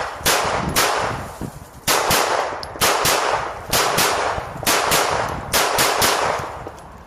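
A CNC-made clone of a 14-round Browning pistol firing about a dozen shots in quick succession, several of them in rapid pairs. Each shot has a long echoing tail, and the firing stops about six seconds in.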